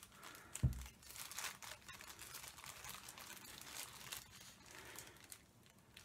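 Clear plastic bag crinkling in gloved hands as it is opened, in irregular faint crackles, with a single thump about half a second in.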